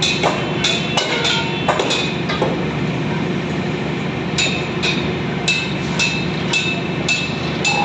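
Metal striking steel rebar in ringing clinks, irregular at first and then settling into a regular beat of about two a second, over a steady low machine hum.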